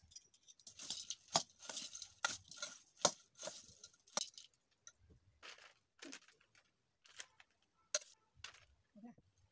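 Steel spoon stirring puffed rice in a stainless steel bowl: the dry rice rustles while the spoon clinks sharply against the bowl. The clinks and rustling are busiest in the first four seconds, then thin out to scattered clinks as the mix is scooped out.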